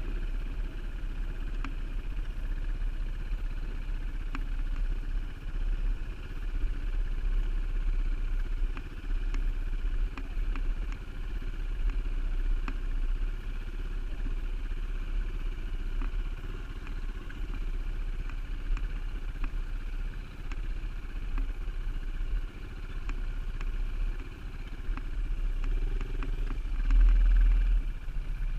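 Dirt bike engine running steadily close to the microphone, with wind and trail bumps rumbling on the mic. About 27 seconds in there is a louder low thump.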